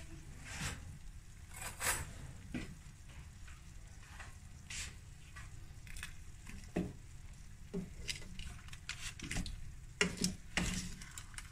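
Roast chicken pieces sizzling in their hot pan juices straight out of the oven, a soft hiss with irregular crackles. A few light knocks near the end.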